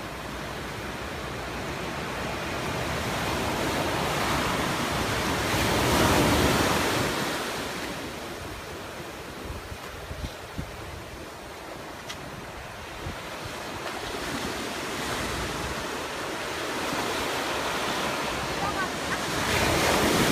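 High surf breaking on a sandy beach: a steady wash of waves that swells into a loud crash about six seconds in and again near the end.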